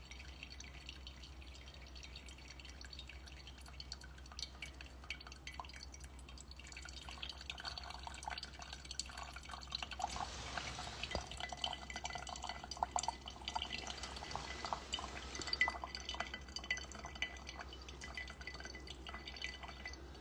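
Coffee brewing slowly, with many small drips and trickles of liquid falling; the dripping grows busier partway through and eases off near the end.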